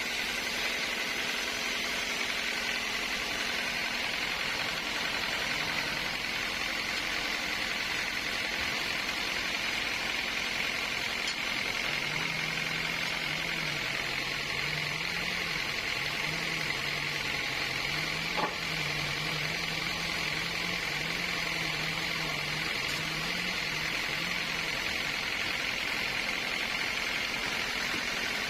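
Sawmill machinery running steadily, a constant hiss-and-hum with no cut starting or stopping. A faint low wavering tone runs through the middle stretch, and there is one small tick about two-thirds of the way through.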